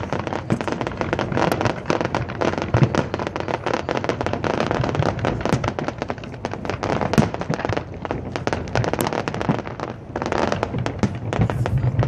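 Aerial fireworks going off in quick succession: a dense, continuous crackle of many small bursts, with a few sharper cracks standing out.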